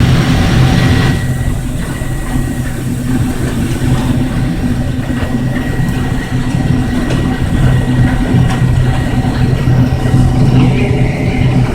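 Case IH 1680 combine running steadily while harvesting milo: a constant low engine hum with a steady whine above it. A brighter hiss in the first second cuts off suddenly.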